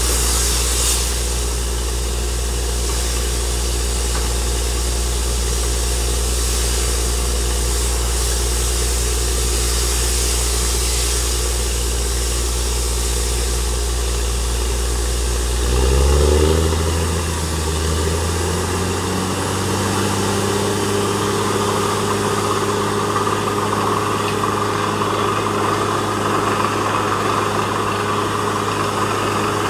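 Truck-mounted borewell drilling rig's engine running steadily. About halfway through it speeds up, the pitch rising, then it holds at the higher speed with a thin whine on top.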